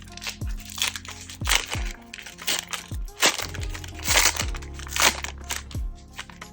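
A trading-card pack wrapper being torn open and crinkled, a run of sharp crackles, over background music with a steady thudding bass beat.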